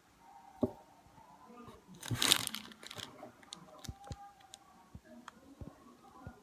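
Light clicks and knocks from plastic mechanical pencils being handled, with a brief louder rustling scrape about two seconds in.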